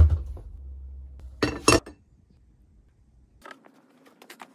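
Kitchen handling sounds while making tea: a low thump at the start, then two sharp clinks of crockery about a second and a half in. Near the end, a run of faint, quick small ticks.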